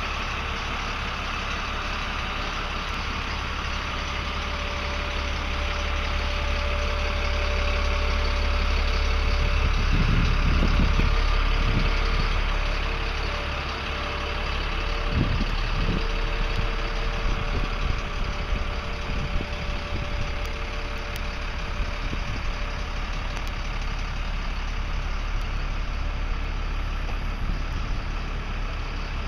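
A motor vehicle engine running steadily with a low rumble and road or wind noise, growing slightly louder about a third of the way in, with a few low thumps near the middle.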